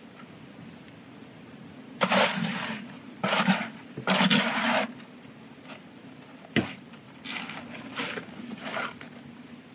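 A bucket scraping and scooping wet concrete in a steel wheelbarrow: three loud rough scrapes, a single sharp knock against the barrow, then several lighter scrapes near the end.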